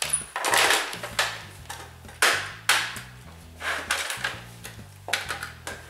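Plastic clatter of a toy slot-car race set: about six sharp knocks and clicks, irregularly spaced, as the cars and plastic track are handled, over a low steady hum.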